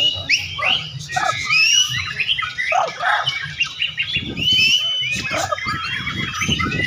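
White-rumped shama (murai batu) singing rapid, varied whistled phrases among many other caged songbirds calling at once, a dense overlapping chorus of sweeping whistles.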